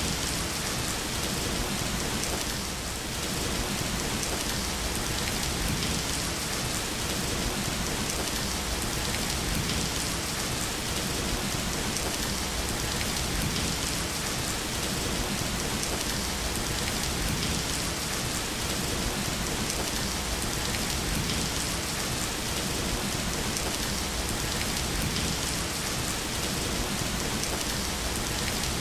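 Steady rain falling on a surface, an even hiss of many drops without breaks.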